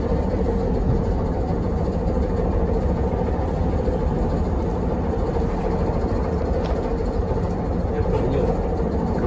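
Inside a ZiU-682G trolleybus under way: a steady low rumble of the moving vehicle, with a faint steady hum riding over it.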